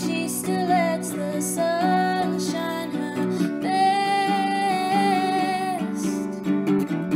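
A woman singing a slow song to acoustic guitar accompaniment. A little past the middle she holds one long note.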